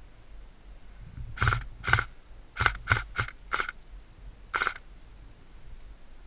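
Seven sharp snaps, each with a short metallic ring, in an irregular sequence: two, then a quick run of four, then one more about a second later.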